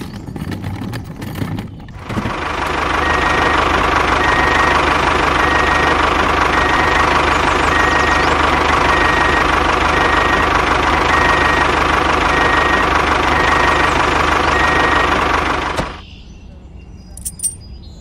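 A miniature model tractor's motor runs steadily with a high whine as the tractor drives over sand. It starts abruptly about two seconds in and cuts off abruptly shortly before the end. Light metallic clicks come from handling the tow hitch at the start and again near the end.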